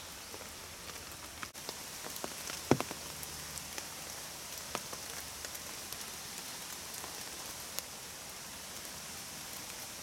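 Steady rain falling, with many single drops tapping on an umbrella overhead; one drop lands much louder a little under three seconds in.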